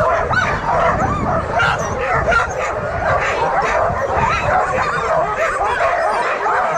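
A hitched team of sled dogs yipping, whining and barking together in a continuous, overlapping chorus: the excited clamour of a team in harness waiting to be let go.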